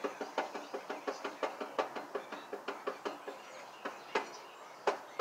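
Mower deck spindle pulley being rocked and turned by hand, knocking and clicking rapidly, about four knocks a second, then a few sparser ones with one louder knock near the end. The knocking comes from a lot of play in the pulley, which the owner puts down to the blade underneath having come loose.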